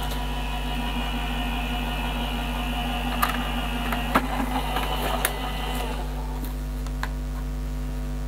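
Electric Gemini die-cutting machine running as a die and card sandwich is fed through its rollers: a steady motor hum with a few clicks, stopping about six seconds in.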